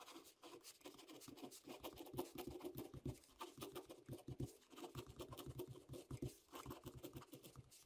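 A pen scratching faintly on paper as block letters are written: a quick, irregular run of short strokes.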